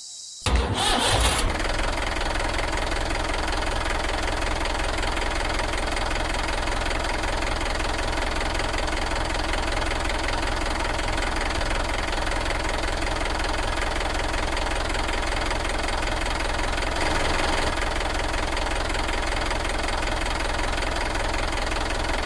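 An engine running steadily at idle with a knocking beat. It comes in suddenly about half a second in.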